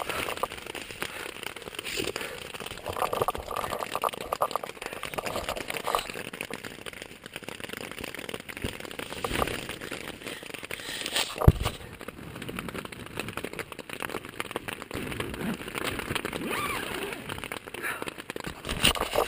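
Heavy rain falling on a tent during a brief downpour, heard from inside as a dense patter of drops. One sharp knock stands out a little past halfway.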